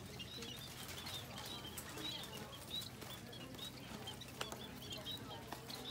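Birds chirping: many short high calls, several a second, over a steady low hum.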